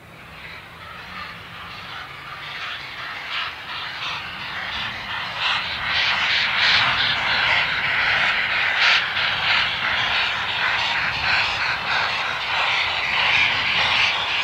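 A heritage railway locomotive working a train, growing louder over the first several seconds as it approaches and staying loud until the sound cuts off suddenly.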